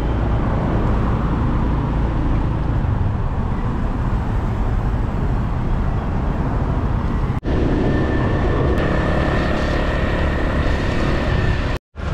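Riding pillion on a motorcycle taxi in traffic: a steady rumble of wind on the microphone over the motorcycle's engine and the surrounding traffic. The sound cuts off briefly about seven seconds in and again near the end.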